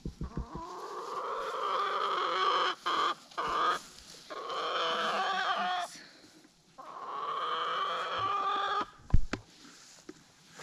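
Rooster crowing: three long, drawn-out crows, each about two seconds, with a few short calls between the first two. A sharp knock comes near the end.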